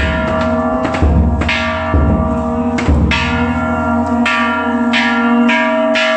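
Metal bells struck again and again, roughly once a second, each strike ringing on so the tones overlap into a continuous clangour.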